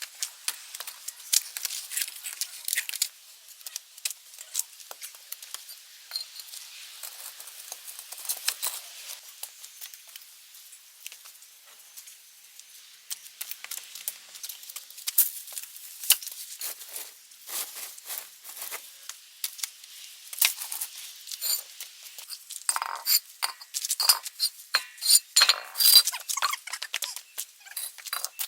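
A busy run of light clicks, clinks and rustles as garden items are handled, growing denser and louder near the end.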